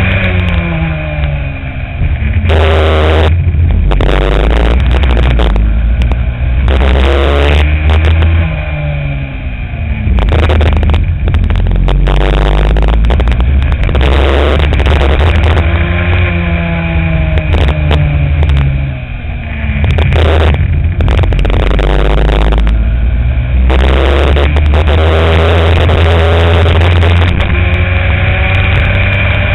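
Racing kart engine heard close up from the kart itself, its pitch climbing again and again as it accelerates and falling away as it lifts off for corners, with repeated bursts of hiss.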